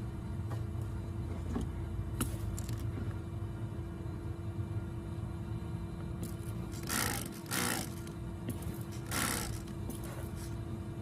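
Vacuum motor running steadily, blowing air into a car's exhaust pipe to find an exhaust leak, with a constant hum. There are a few short bursts of hiss about seven and nine seconds in.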